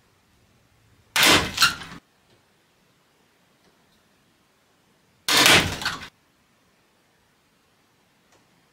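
Two sudden sharp cracks about four seconds apart, each followed by a short clatter lasting under a second: a hide-glued wooden test joint breaking under load in a lever pull-test rig.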